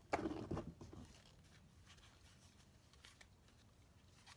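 Brief handling noise in the first second, then near silence.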